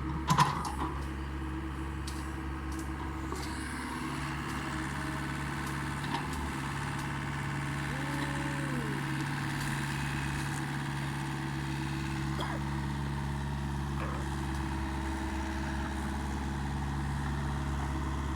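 Mini excavator's diesel engine running at a steady idle-like speed. About eight seconds in, a short whine rises and falls.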